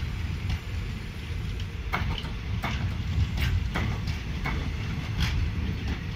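Empty rake of passenger coaches rolling past at close range: a steady low rumble of wheels on rail, with a sharp clack every second or so as the wheels cross rail joints.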